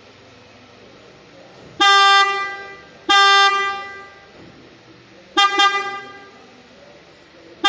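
Car horn sounding on one steady note: two short honks about a second apart, then a quick double toot about five and a half seconds in, and another starting at the very end. The horn is being tested and is working again after being repaired for loss of sound following a car wash.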